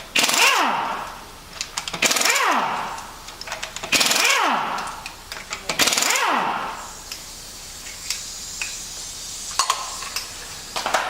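Air impact wrench undoing a wheel's lug nuts for a brake check: four bursts about two seconds apart, each a hammering rattle that winds down in falling pitch as the nut spins free. A few seconds of hiss and some light clicks follow.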